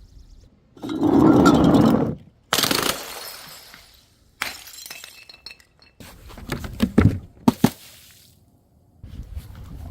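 Glass breaking and shattering in several separate events: a loud, dense crash about a second in, a second sudden shatter soon after, and a few sharp clinks and knocks of glass near the end.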